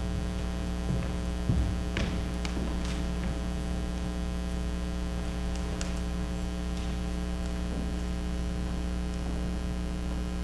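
Steady electrical mains hum, with a few faint clicks and knocks about two and three seconds in and again near six seconds.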